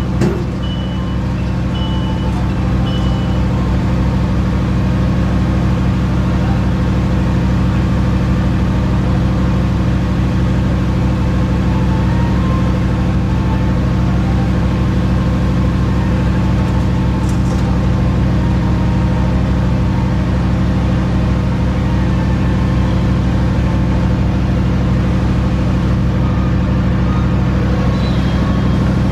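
Steady running noise of a moving diesel-hauled passenger train, heard on board: an even engine drone with rumble. A short high beep sounds about three times in the first few seconds.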